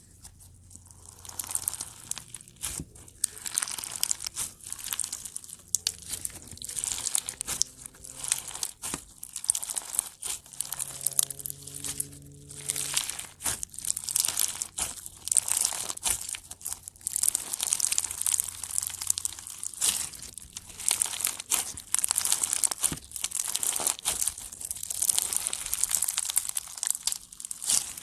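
Slime being squeezed, pressed and stretched by hand, giving a dense, irregular stream of crackling and popping throughout.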